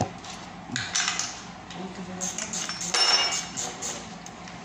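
Metal clicks and clinks of a socket wrench working the cover bolts of a buggy differential, with a run of quick ticks a little after two seconds and a louder, ringing metal clank about three seconds in.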